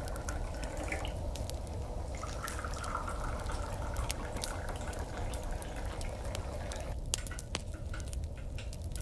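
Hot drink poured into a cup in a steady stream that stops about seven seconds in, with scattered light clicks and taps, more of them near the end.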